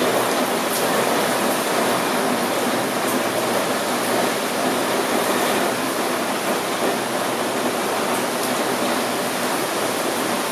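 Steady rain falling, an even rushing hiss that does not let up, with now and then a faint tick of a single drop.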